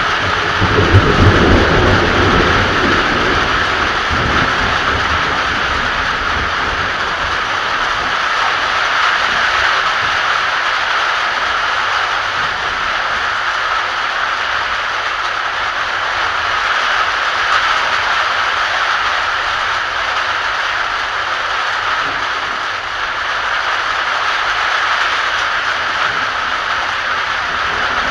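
Heavy rain falling in a steady hiss during a thunderstorm, with a low rumble of thunder in the first few seconds that fades away.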